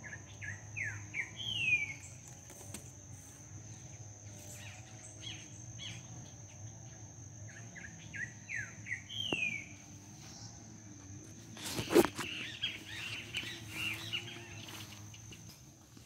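A songbird sings a short phrase of quick descending whistled notes twice, about eight seconds apart, over a steady high insect trill. About twelve seconds in there is a single sharp knock, followed by a few seconds of busier bird chirping.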